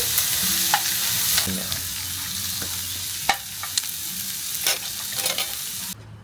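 Food sizzling on a mukata, a Thai barbecue grill plate, in a steady loud hiss with occasional sharp pops. It cuts off abruptly near the end.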